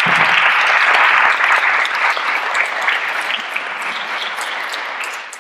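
Audience applauding, dense at first, then thinning out to scattered separate claps near the end.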